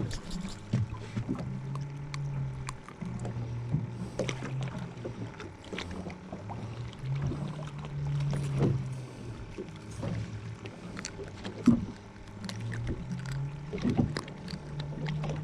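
Boat's engine idling with a low hum that steps up and down in pitch every few seconds, under scattered knocks and clatter.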